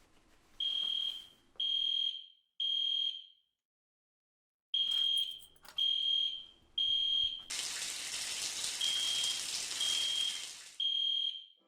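Fire alarm beeping a single high tone about once a second, each beep just over half a second long. It breaks off into a second of silence a few seconds in, then resumes. For about three seconds near the end a loud, steady rushing hiss runs over the beeps.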